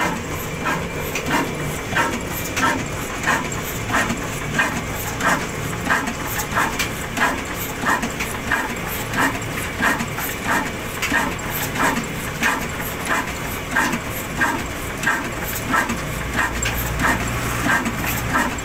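Ruston Hornsby stationary diesel engine running at a slow, even speed: a regular beat of about three exhaust thumps every two seconds over a low hum.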